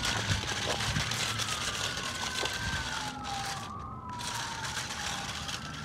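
Fire truck siren wailing, its pitch gliding slowly up and then down in long sweeps.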